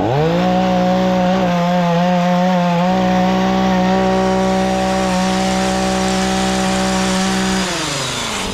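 Gas pole saw's small engine revved to full throttle, held at high speed with a brief slight dip in pitch, then let back down toward idle near the end.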